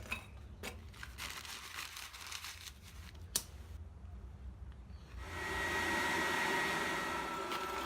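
A forge running, a steady rushing noise with a faint whine that comes in about five seconds in. Before it come a few faint clicks and rustles, with one sharp click.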